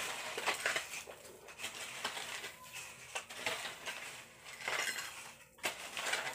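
Metal shovel blade scraping into soil and rubble in repeated strokes about once a second, with gritty clinks as it strikes stones.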